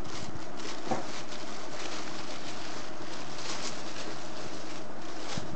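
Tissue paper and plastic packing wrap rustling and crinkling as they are handled and pulled out of a shoe box, with a few sharper crackles.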